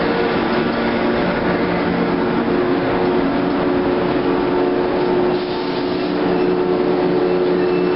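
457 series electric multiple unit pulling into a station platform, its cars rolling past close by with steady humming tones.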